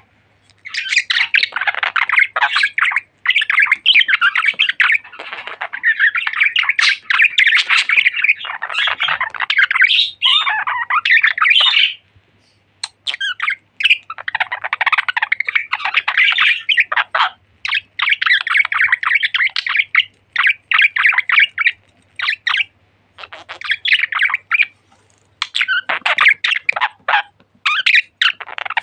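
Budgerigars chattering and warbling: fast runs of chirps and squawks lasting a few seconds each, broken by short pauses, the longest a little before halfway.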